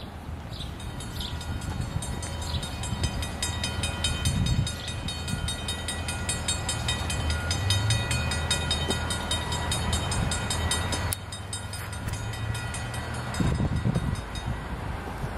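Approaching Norfolk Southern train in the distance: the locomotive horn sounds over a low rumble, with a rapid, regular ringing strike for most of the time, which stops about eleven seconds in.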